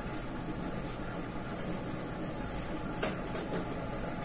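Cloth duster rubbing across a whiteboard as the writing is wiped off, a soft steady scrubbing. A steady high-pitched tone runs underneath, with a faint click about three seconds in.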